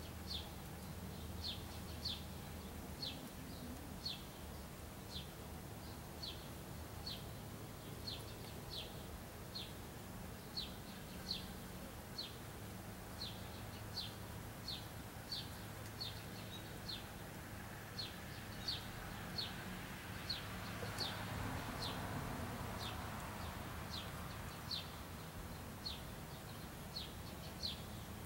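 A bird chirping over and over: short, high chirps about one and a half times a second, over a steady low hum. A soft rush of noise swells and fades about twenty seconds in.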